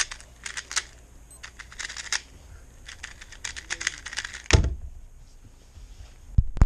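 A plastic speedcube being turned quickly, a rapid run of clicks, then a loud thump about four and a half seconds in and a single sharp knock near the end.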